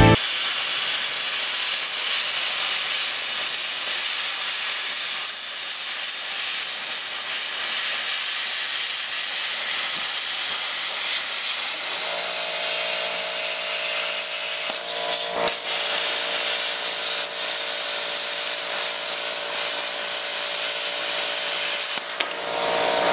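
Plasma cutter cutting through the steel centre of a clutch disc: a steady hiss of air, joined about halfway through by a steady humming whine, with a couple of brief breaks near the end.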